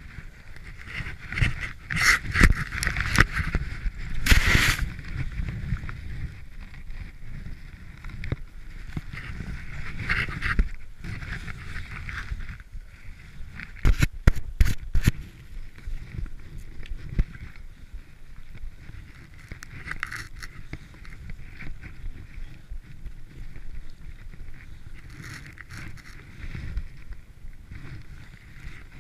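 Skis ploughing through deep fresh powder, with irregular swishing and rustling that swells and fades with each turn. A quick cluster of sharp knocks comes about halfway through.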